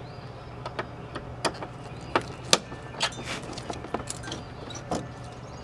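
Irregular small clicks and ticks of a screw and plastic door trim being handled by hand as the last screw is taken out of the door-pull trim. There are about a dozen light clicks, the sharpest about halfway through.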